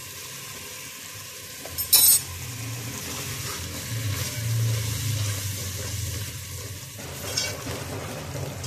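Onion, ginger-garlic paste and ground spices sizzling as they fry in oil in a metal pot while being stirred, with a sharp metal clink against the pot about two seconds in and a fainter one near the end.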